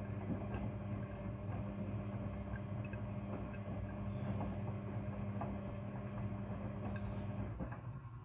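Front-loading washing machine running a wash: a steady motor hum with the small taps and water noises of laundry tumbling in the drum. The hum stops about seven and a half seconds in, as the drum pauses.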